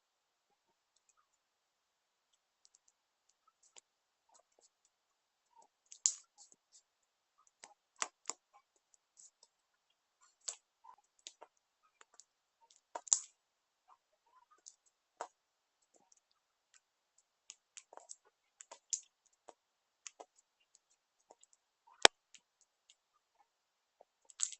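Slime being squeezed and kneaded by hand, giving off irregular sharp clicks and pops, a few of them much louder than the rest.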